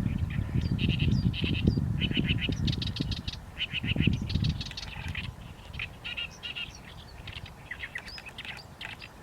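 Small birds chirping in quick runs of short, high notes, repeated throughout. A low rumble sits under the chirps for the first five seconds or so, then fades.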